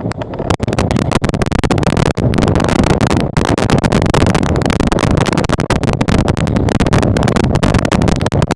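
Strong wind buffeting the microphone: a loud, rough rumble with constant crackling and distortion.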